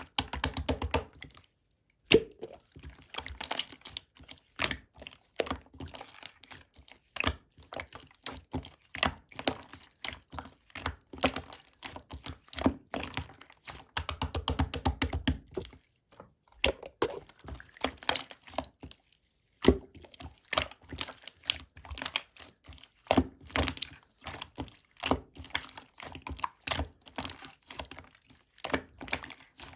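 Slime being squished and kneaded by hand: a dense run of small sticky clicks and pops, with a few brief pauses.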